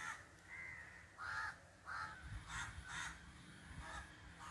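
A crow cawing in a series of short calls, about two a second.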